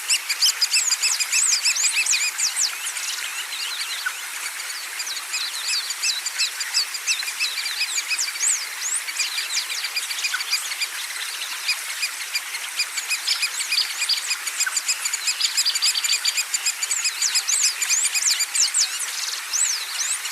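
Many small songbirds chirping and trilling together in a dense, overlapping chorus of quick high chirps over a steady hiss. The chorus comes in suddenly at the start.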